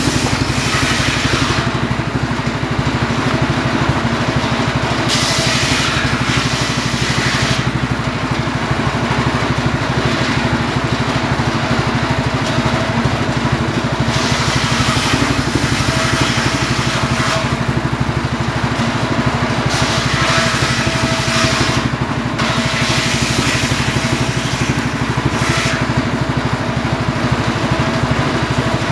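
Homemade circular saw running steadily under its engine drive, its blade cutting through firewood logs several times; each cut is a burst of high-pitched rasping noise lasting two to three seconds over the steady drone.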